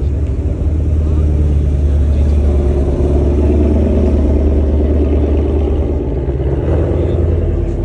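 Shelby Mustang's V8 running at low speed as the car pulls slowly past, its sound swelling a few seconds in and easing off as it moves away.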